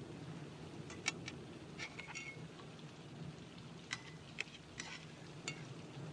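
Cutlery and dishes clinking at a table: about ten light, separate clinks in small clusters, a couple with a brief ring.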